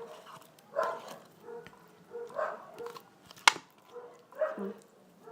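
A dog barking three times, about a second and a half apart, with a single sharp click in between.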